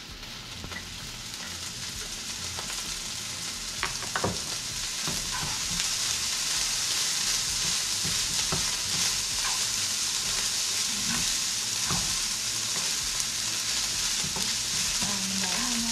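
Fried rice sizzling in a hot pan while it is stirred, just after soy sauce has gone in; the sizzle builds over the first few seconds, with a few knocks of the utensil against the pan.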